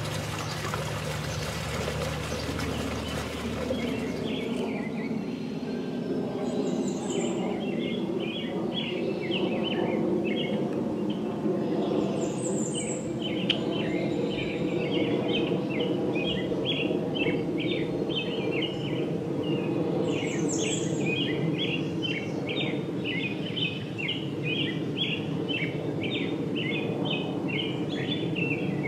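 Water trickling for the first few seconds, then outdoor ambience of small birds chirping rapidly and continuously, with a few higher calls now and then, over a steady low background noise.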